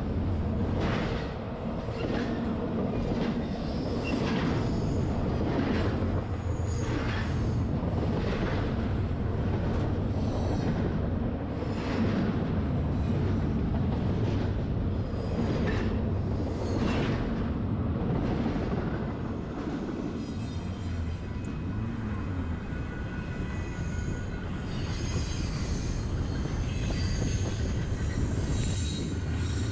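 Long freight train rolling around a tight curve: a steady low rumble of locomotives and cars, with regular wheel clicks about every second. Thin, high wheel squeal comes in near the end.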